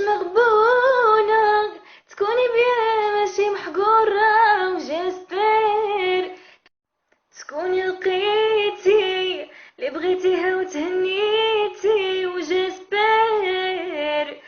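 A young woman singing a Moroccan Arabic song solo, with no accompaniment, in long held, ornamented notes. She breaks off for a breath about halfway through, then carries on.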